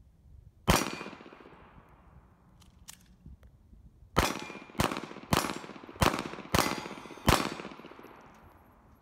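A Ruger LCP II .380 ACP pocket pistol fires seven shots. A single shot comes about a second in, and after a pause of about three seconds comes a string of six shots, roughly half a second apart. Each shot trails off in an echo.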